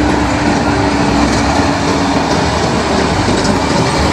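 Heavy tipper dump trucks driving on a dirt road: loud, steady diesel engine and tyre noise, with a steady hum that fades after about a second.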